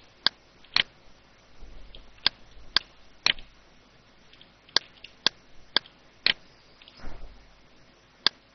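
Computer mouse clicking: a dozen or so sharp single clicks, mostly about half a second apart in short runs, over faint room hiss.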